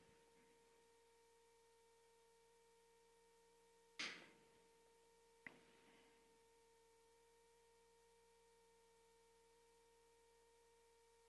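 Near silence: room tone with a faint steady hum, broken by a soft knock about four seconds in and a short click a second and a half later.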